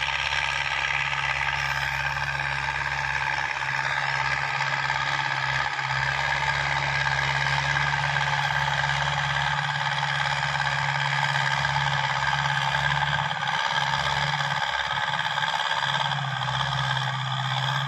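Ford farm tractor's diesel engine running steadily under load as it pulls a disc harrow through ploughed ground, with rattling and clattering from the harrow.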